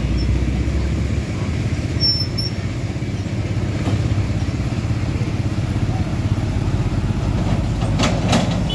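Heavy truck engine running as road traffic passes, a steady low rumble. A few sharp clattering knocks near the end.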